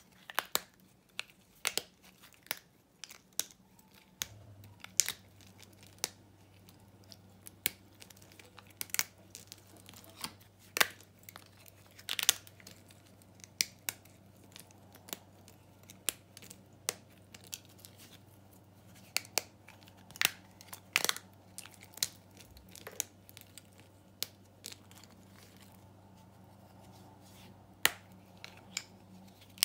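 Thin slices of dry, old Svoboda factory soap snapped and crumbled between the fingers: a string of sharp, crisp cracks at irregular intervals, with soft crumbling of chips in between.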